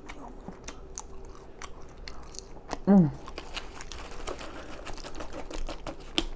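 Close-up open-mouth chewing and lip smacking on a burger and fries, a steady run of wet clicks. About three seconds in comes one short, loud, low voiced sound that falls in pitch.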